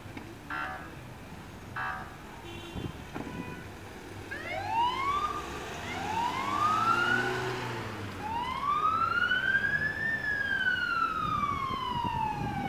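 Ambulance siren starting up: two short rising whoops, then a third that climbs for about a second and a half and falls slowly away in a long wail.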